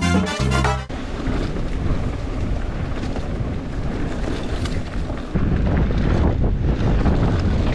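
Music cuts off about a second in, then wind rushing over the microphone of a mountain bike in motion, mixed with tyre and frame noise on the trail. It gets louder in the low end about five seconds in.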